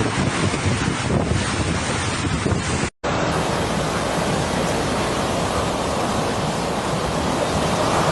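Hurricane wind blowing hard against the microphone over the steady noise of heavy surf. About three seconds in, the sound cuts out for a moment and resumes as another stretch of the same storm noise.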